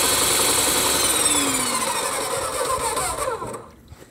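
Electric airless paint sprayer running with the gun's trigger locked open, its pump whining over the hiss of paint spraying into the bucket. The whine glides downward from about a second and a half in, and the machine winds down and stops about three and a half seconds in.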